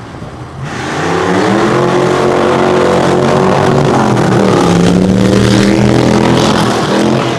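Two pre-1960s hot rods racing side by side in a drag run, their engines revving hard and loud as they accelerate past. The engine note climbs from about a second in, dips about four seconds in, then rises again.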